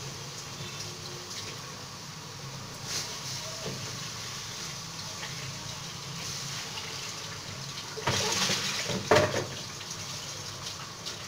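Pieces of cut tripe and lung cooking in a hot pot without added water, hissing and bubbling as they release their own juices, over a steady low hum. About eight seconds in a louder, noisier stretch rises, loudest just after nine seconds.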